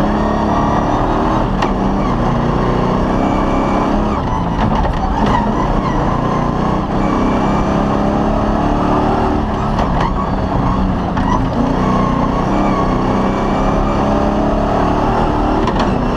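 Off-road rally car's engine running hard, heard from inside the cockpit, its note rising and falling as the driver accelerates and lifts on a dirt track. Under it run a steady rumble of tyre and chassis noise and a few scattered clicks and knocks.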